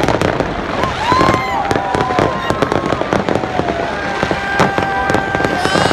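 Fireworks display: dense, rapid crackling and bangs, with several held high tones over them, some bending at their ends.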